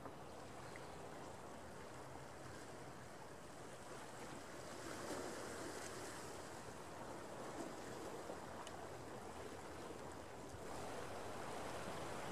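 Steady, low wash of ocean surf and wind, growing a little louder about five seconds in.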